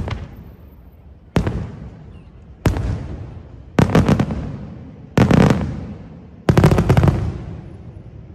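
Aerial firework shells bursting: six sharp bangs about a second and a half apart, each trailing off in a rumbling echo, the last three louder and crackling.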